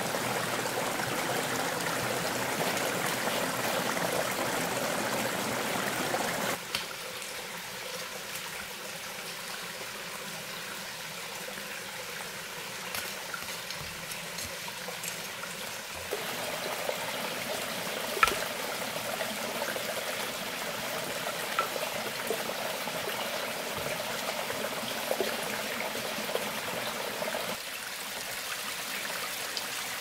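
Steady running water of a rocky forest stream, its level shifting abruptly a few times, with a few faint knocks.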